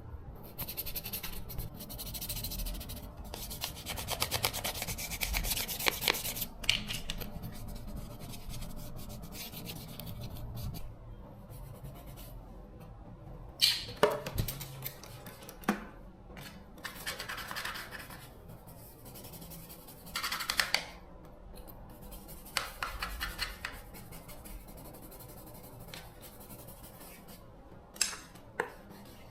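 Hand scraping and rubbing on a part in stretches of quick strokes, broken by a few sharp clicks and knocks, the loudest about halfway through and near the end.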